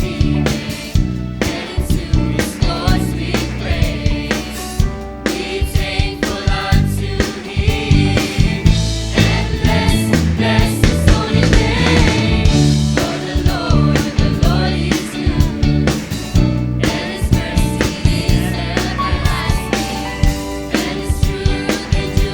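Youth choir singing an upbeat gospel song together over instrumental accompaniment with a steady drum beat.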